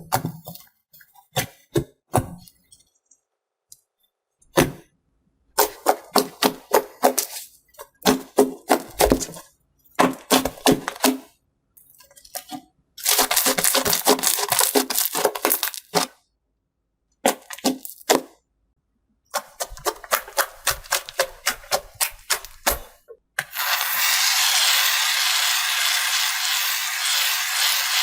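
Rapid runs of crackling clicks in bursts separated by short silences, then a steady hiss for the last few seconds.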